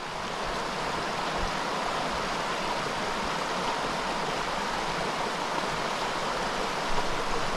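Small mountain trout stream flowing over rocks: a steady, even rush of water.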